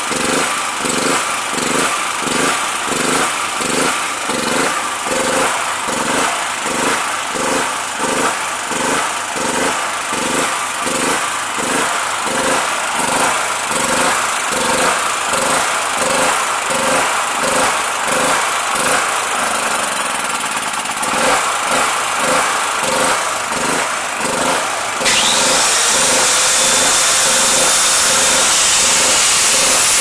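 Jiangdong JF200 (PowerWise 3500) generator engine running with a rhythmic surge, rising and falling about one and a half times a second: the surge the owner sets out to fix. About 25 s in, an electric angle grinder plugged into the generator switches on with a falling whine, and its steady running covers the engine.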